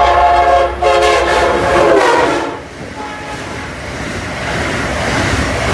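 Amtrak Acela high-speed trainset sounding its horn as it approaches: one blast ends under a second in and a second blast follows, its pitch dropping as the train comes by. The horn stops about two and a half seconds in, leaving the rushing noise of the train passing through at speed.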